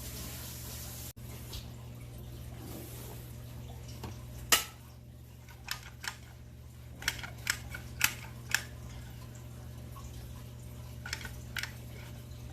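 Hand-work noises while caulking: a few scattered sharp clicks and light knocks over a steady low hum, the loudest click about four and a half seconds in.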